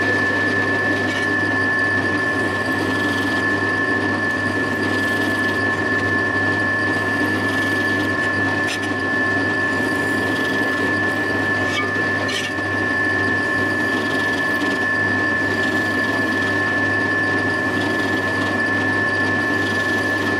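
Bench drilling machine running steadily, a constant high whine over a low hum, with a few faint ticks.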